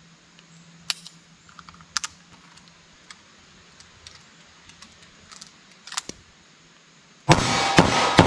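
Light metallic clicks as a 2-inch Taurus 605 snub-nose revolver is handled and reloaded with a speed loader. About seven seconds in, it fires .38 Special +P rounds in quick succession, roughly two shots a second, with a steel target ringing.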